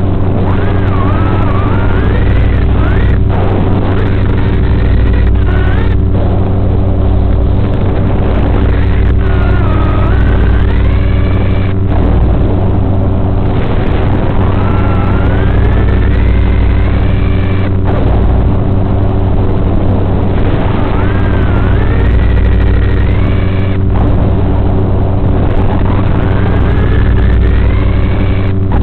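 Small FPV drone's electric motors whining, the pitch rising and falling again and again with the throttle, over a loud steady buzzing hum, cut by brief dropouts every few seconds.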